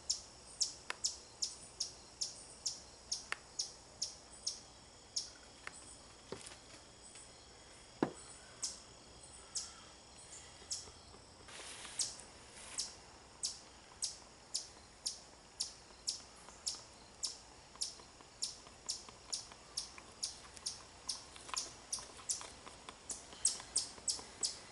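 Short, sharp high-pitched chirps repeating about twice a second from a bird or insect in the surrounding brush. A few faint clicks and a brief scrape come from a stick stirring epoxy in a plastic cup.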